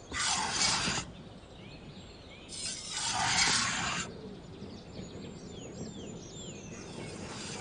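A knife shaving a wooden stick in two scraping strokes, the first about a second long and the second about a second and a half, with a fainter third stroke near the end. Small birds chirp in the background.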